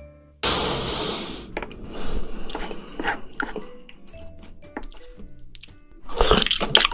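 Wet, sticky clicks of chopsticks working through a pile of chopped raw octopus, after a loud hiss lasting about a second near the start. Close-miked chewing of a mouthful of raw octopus starts about six seconds in.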